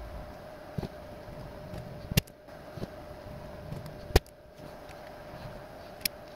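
Clicks and knocks of a hard 3D-printed plastic part and small screws being handled and set down on a workbench mat, two of them sharp and loud about two and four seconds in, over a steady low hum.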